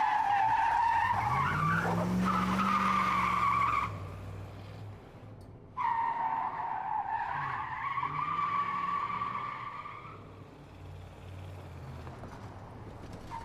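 Car tires squealing in long skids, starting and stopping abruptly, with an engine revving up and back down underneath.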